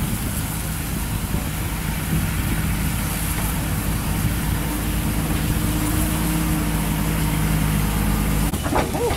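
Engine running steadily at idle, a low hum with a few held tones; it cuts off abruptly near the end.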